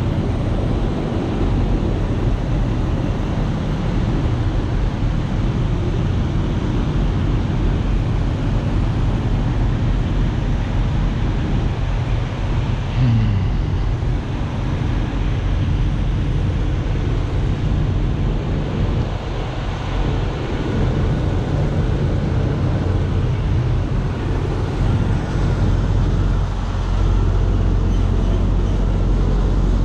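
Semi-truck's diesel engine running at low speed with a steady low hum, plus road and wind noise; a short falling tone sounds about thirteen seconds in.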